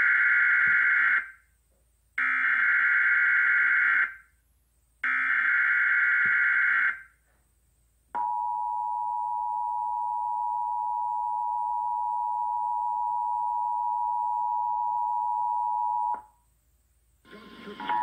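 Emergency Alert System activation for a test tornado warning, played through a TV speaker: three bursts of SAME header data, each about two seconds long with a second's gap between them, then the steady two-tone attention signal for about eight seconds, which cuts off shortly before the end.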